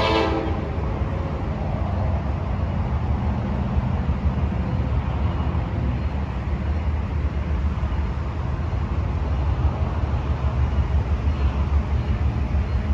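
Low, steady rumble of an approaching diesel freight locomotive, with the last of its horn blast cutting off about half a second in.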